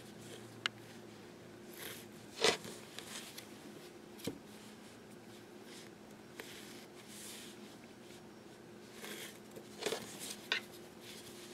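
Sharpie marker drawing lines on quilted fabric along an acrylic ruler: faint scratchy pen strokes, with a few short sharp clicks and taps as the ruler and pen are handled.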